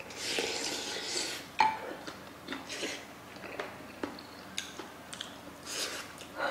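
Mukbang eating sounds: a slurp of sundae soup from a spoon, a sharp clink as the spoon is set into the earthenware pot, then chewing and smacking with a soft rustle of a tissue wiping the mouth.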